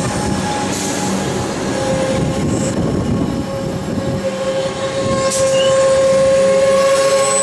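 A Comeng electric multiple unit running past along the platform, with a rumble of wheels on rail and a steady squealing tone that grows louder over the second half.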